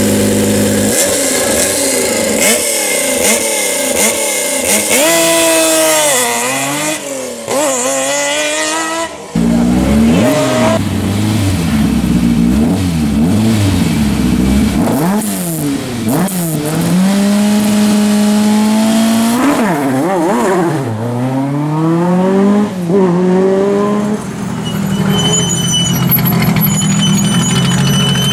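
Historic rally cars at a stage start, one after another. A Lancia Stratos's V6 idles and then revs hard and pulls away, its pitch climbing and dropping through the gear changes. A Ford Escort RS 1800 does the same, and near the end an Audi Quattro's turbocharged five-cylinder idles steadily with a faint high whine.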